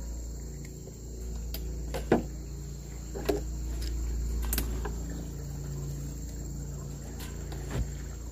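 Crickets or other insects chirring steadily in a high drone, over a low steady hum. Four or five sharp clicks and knocks are heard, the loudest about two seconds in.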